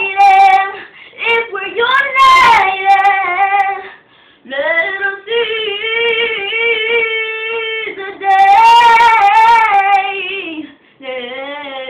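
A girl singing unaccompanied, holding long notes with a wavering vibrato, broken by a few short breaths.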